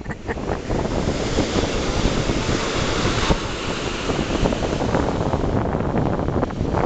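Ocean surf breaking and washing up the beach at the water's edge, a steady rushing noise, with wind buffeting the microphone.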